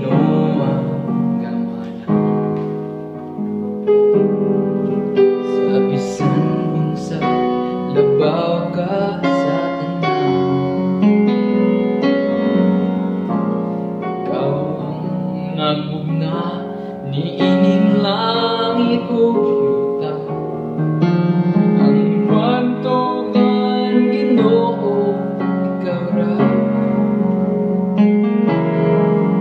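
Yamaha portable keyboard played with both hands in a piano voice: a melody over sustained chords, one note change after another without a pause.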